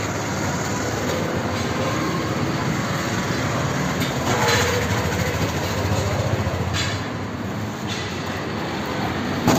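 A vehicle engine running steadily with a low rumble, with two brief brighter noises over it about four and a half and seven seconds in.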